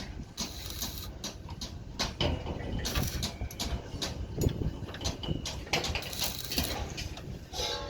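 A run of irregular knocks, clicks and clatter over a low rumble.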